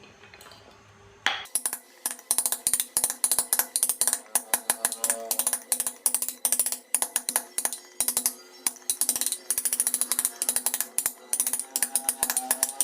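Hand carving tool cutting into wood: rapid, irregular sharp clicks and snaps, several a second, starting about a second and a half in after a faint lull.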